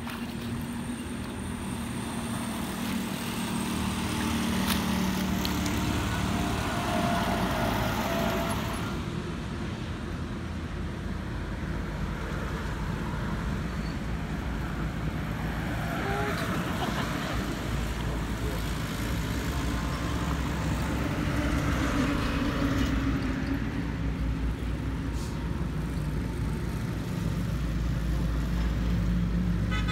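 Steady low motor-like rumble, with the sloshing and splashing of water as a person wades through a pond.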